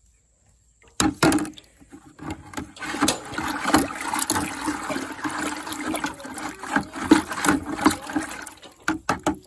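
Sugar and water being stirred with a pole in a plastic bucket: steady sloshing and swirling as sugar syrup for bee feed is mixed, with a few sharp knocks about a second in and again near the end.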